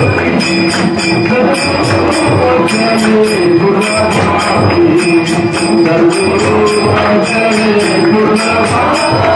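Indian devotional music: a steady jingling beat, tambourine-like, over a held melody that moves from note to note.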